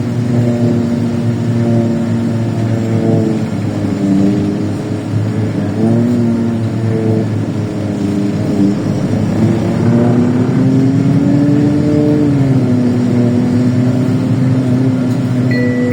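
LiAZ 4292.60 city bus heard from inside while under way: the engine runs steadily, its pitch rising and falling several times as the bus accelerates and shifts gear. Near the end a short electronic chime sounds.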